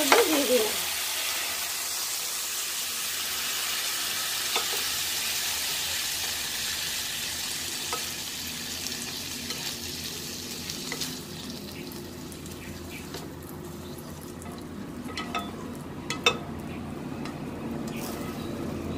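Chicken pieces sizzling in butter in a non-stick frying pan while a wooden spatula stirs them. About halfway through the sizzle dies down as the pan comes off the heat, and the spatula scrapes and taps against the pan a few times, with one sharp knock near the end, as the chicken is scraped out into a bowl.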